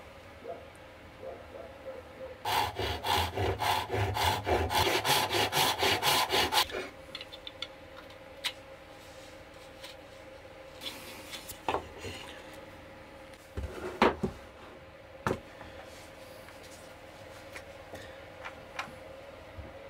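Hand saw cutting wood in quick, even strokes, about four or five a second, for roughly four seconds. A few scattered knocks follow later.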